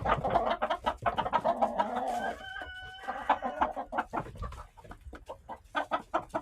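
Silkie chickens clucking rapidly and continuously. About halfway through, one bird gives a single held call lasting under a second.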